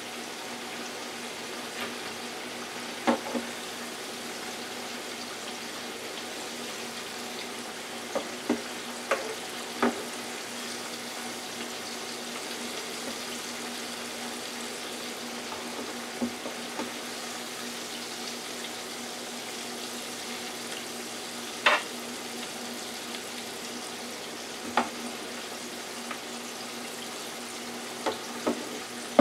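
Jumbo shrimp frying in hot oil in a small electric deep fryer, a steady sizzle. About ten sharp clinks of metal tongs against the fryer and wire rack come as the shrimp are lifted out, the loudest one about two-thirds of the way through.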